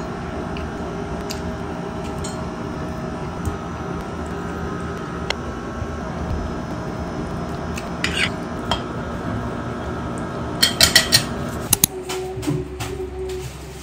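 Metal fork and spoon clinking and scraping on a ceramic plate during a meal, a few scattered clinks and then a quick run of sharp, louder clinks near the end, over a steady background hum.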